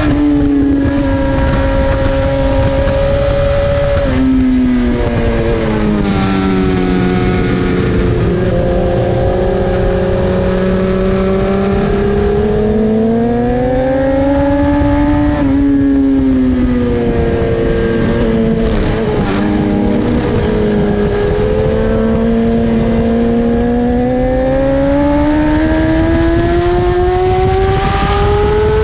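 BMW S1000RR's inline-four engine at racing speed, its note climbing under acceleration and sinking under braking, with sudden drops in pitch at gear changes about 4 and 15 seconds in and again at the very end.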